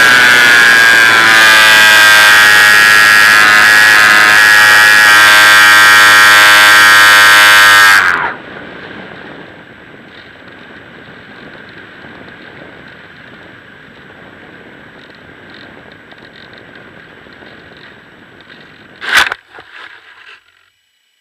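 RC Spitfire model's motor running flat out as a loud, steady whine, heard up close from a camera on the nose. About eight seconds in it cuts off abruptly, leaving a quieter rush of air as the plane glides down. Near the end comes a single sharp knock as the plane lands in the grass.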